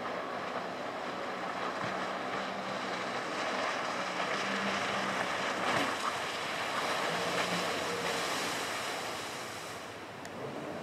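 Speedboat running fast through the water: a rushing wash of spray and wake with a faint engine hum underneath, swelling to its loudest about halfway through and easing off near the end.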